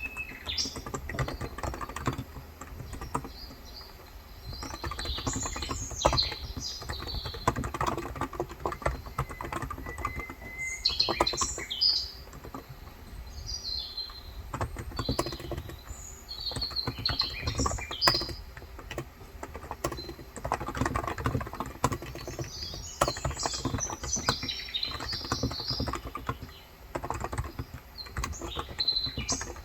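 Typing on a Cox Endeavor tenkeyless keyboard with 35 g electro-capacitive (Topre-style) switches: a continuous, irregular run of keystrokes. Birds chirp in short bursts over it several times.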